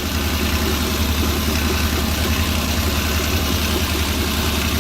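Suzuki Bolan's fuel-injected engine idling steadily. One cylinder is suspected of not firing: unplugging its injector brings no drop in rpm and no extra shake.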